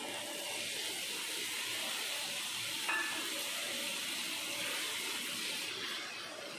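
Tamarind water sizzling and hissing in a hot pan of sautéed bottle gourd, easing off near the end, with a single light clink about three seconds in.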